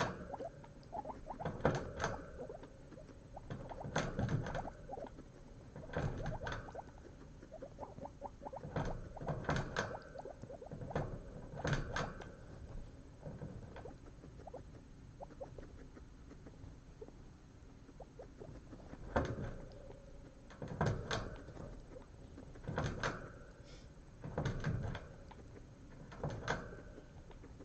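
Guinea pig chewing, in short bursts of fast crunchy clicks that come about every two seconds.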